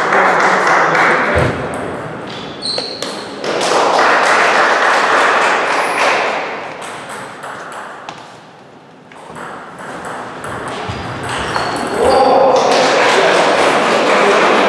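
Table tennis balls clicking off bats and tables, from the doubles rally and from other tables in play, with loud voices and shouts between points.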